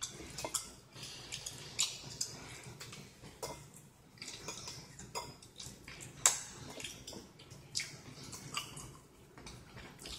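Eating sounds: chewing and smacking on a pork chop, with irregular sharp clicks of a fork against a plate.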